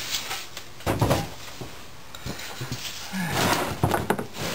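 Metal parts and tools being handled on a workbench: a heavy clunk about a second in, a few light knocks, then scraping and clatter near the end.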